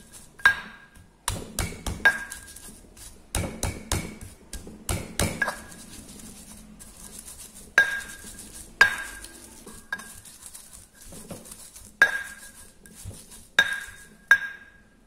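Stone pestle pounding and grinding in a stone mortar (Indonesian cobek and ulekan), crushing ginger, turmeric and candlenuts into a spice paste. Sharp knocks at irregular intervals, several with a brief ring, with grinding scrapes between them.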